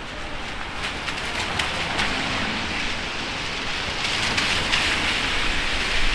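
Heavy rain pouring and splashing on a city street, with scattered sharp drop taps and a low rumble underneath; the rain hiss grows louder about four seconds in.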